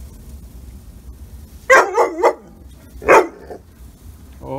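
Yellow Labrador barking: a quick run of two or three barks about two seconds in, then a single bark a second later.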